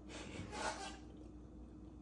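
A short, faint breath through the nose from a man eating, about half a second in.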